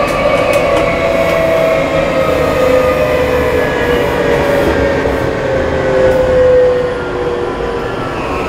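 Odakyu 5000 series electric train heard from inside the passenger car: the traction motors' whine falls slowly and steadily in pitch as the train slows, over the rumble of wheels on rail.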